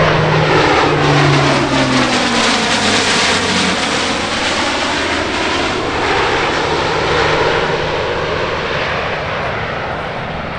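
The four Rolls-Royce AE 2100D3 turboprops of a C-130J-30 Super Hercules, with their six-blade propellers, drone loudly as the aircraft flies past; the propeller tone drops in pitch about two seconds in as it passes, then the sound slowly fades as it flies away.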